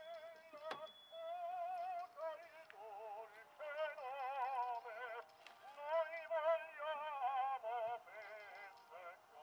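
A 1919 Pathé Frères Model XXI wind-up phonograph playing a 78 record through its wooden horn: a melody with a wide vibrato, the sound thin and cut off in the treble, with a few clicks from the record surface.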